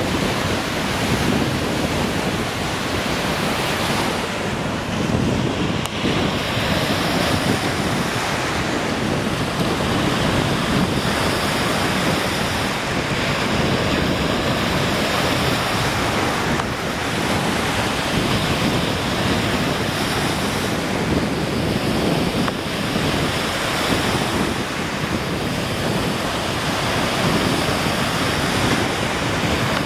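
Waves on a large freshwater lake breaking and washing onto a sandy beach, a steady surging rush, with wind buffeting the microphone.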